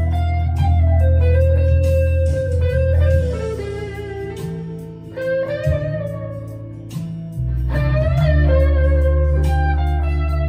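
Harley Benton ST-Modern HSS electric guitar played through an overdrive pedal: a bluesy single-note lead line with string bends. Underneath runs a low bass part that drops out for about two seconds around the middle, then comes back.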